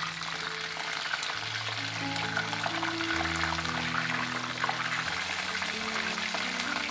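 Breadcrumb-coated chicken cutlets deep-frying in hot oil: a steady crackling sizzle, over background music with sustained low notes.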